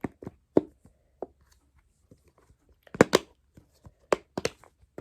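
Simple dimple fidget toy having its silicone bubbles pushed and popped. It makes a series of short, sharp pops: a few in the first second, then a quicker run of them about three to four and a half seconds in.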